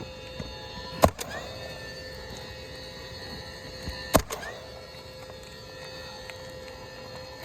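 Two sharp knocks on the roof, about a second in and about four seconds in, each followed at once by a smaller knock, from tools working on an asphalt shingle during a repair.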